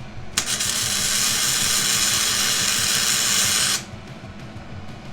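Metalworking equipment running in one steady, hissing burst of about three seconds, starting abruptly and cutting off sharply, over a low background rumble.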